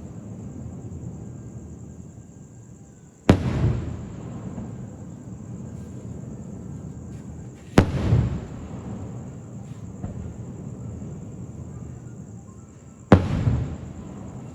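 Fireworks going off: three sharp bangs several seconds apart, each followed by a rumbling echo, over a steady low rumble.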